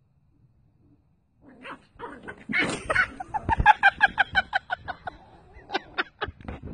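Small dog yapping in a rapid string of short, high barks that starts about a second and a half in, about five a second at its fastest.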